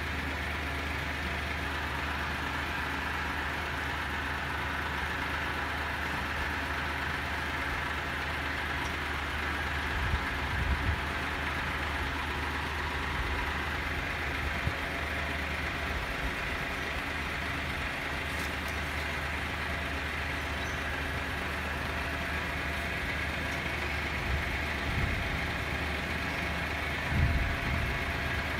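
Skip loader truck's diesel engine idling steadily, with a few short low thumps about ten seconds in and again near the end.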